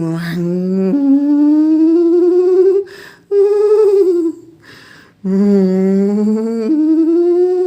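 A man imitating a Mercedes engine with his voice: long wavering humming drones, three of them broken by short pauses, the pitch slowly rising through each.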